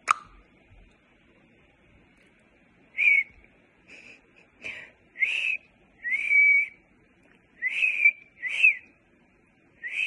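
A person whistling through pursed lips: about seven short, breathy whistled notes at much the same high pitch, starting about three seconds in, one held a little longer, used as a marker signal in place of a clicker for parrot training. A single sharp click sounds right at the start.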